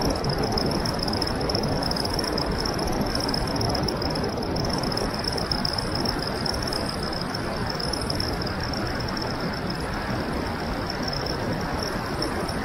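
Wind rushing over an action camera's microphone on a bicycle descending fast on an asphalt road, with tyre noise on the tarmac. A thin, steady high-pitched tone runs throughout.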